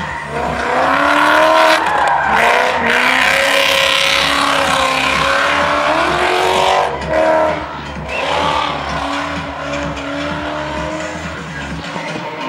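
BMW E36 drift car's engine revving up and down under power while its rear tyres squeal through a slide. The tyre squeal is loudest in the first half.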